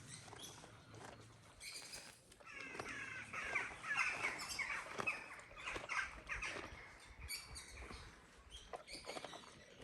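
Birds chirping and calling, with a dense run of quick chirps about three to five seconds in and scattered calls after.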